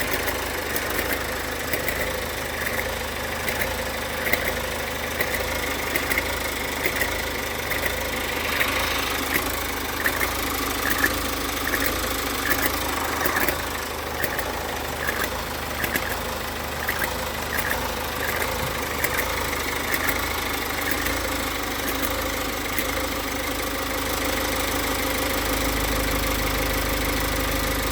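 2018 Insignia 1.6 CDTI diesel engine idling, with a short high chirp repeating a little more than once a second that fades out about two-thirds of the way through. This is the strange noise heard after restarting the warm engine, which lasts under a minute and whose cause the owner does not know. Near the end a low hum grows louder.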